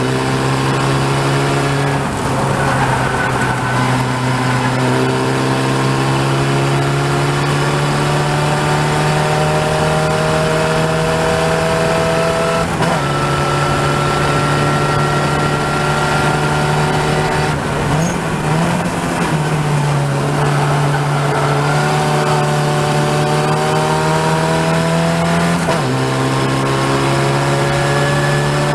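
Open-wheel single-seater race car's engine heard onboard at speed, its note climbing slowly in long pulls and breaking back to a lower pitch about four times at gear changes or lifts.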